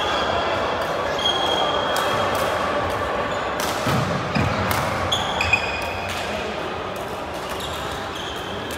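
Badminton rackets striking the shuttlecock as sharp cracks several times, with short squeaks of sports shoes on the wooden court floor. Behind them runs a steady echoing chatter of voices in the hall.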